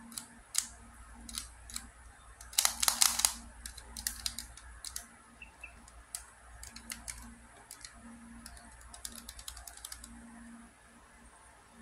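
Plastic pieces of a Master Pyraminx, a four-layer pyramid twisty puzzle, clicking and clacking as its layers are turned by hand. The clicks come irregularly, with a dense flurry about three seconds in, and stop shortly before the end.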